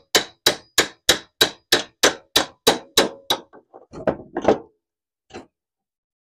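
Pliers used as a makeshift hammer striking the steel hinge rod of a mower deck's discharge chute: sharp metal-on-metal blows about three a second, each ringing briefly. The blows stop about three and a half seconds in, followed by a few lighter clinks and one click.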